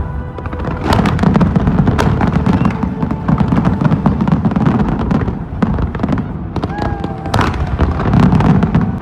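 Fireworks display: rapid crackling and popping of many shells bursting, over a continuous low rumble.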